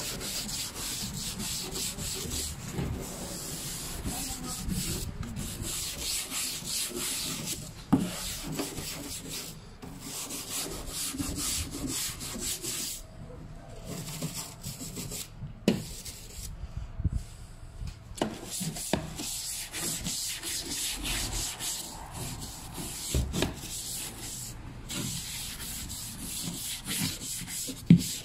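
A hand brush scrubbing car bodywork, working along the panel seams and trim in uneven strokes with short pauses, and a few sharp knocks from the tool against the car.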